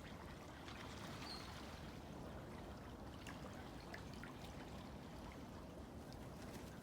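Faint river water flowing and trickling steadily, with scattered small ticks of water.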